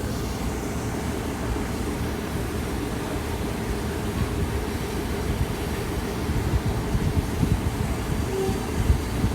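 Railway train: a steady low rumble from a locomotive and its coaches, growing more uneven with heavier low thuds in the last couple of seconds.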